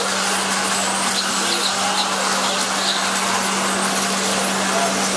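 A pack of electric 1/10-scale RC touring cars racing on the track: a steady high-pitched whir of motors and tyres, over a steady low hum.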